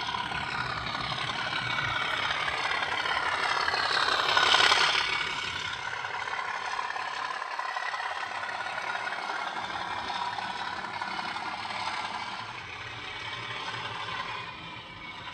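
OO gauge model train running on the layout track, its small motor whirring and wheels rattling over the rails. It is loudest as it passes closest about four to five seconds in, then carries on more steadily.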